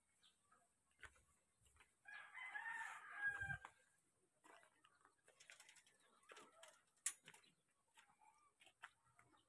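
A rooster crowing once, a call of about a second and a half starting about two seconds in. Faint scattered scuffs and clicks follow.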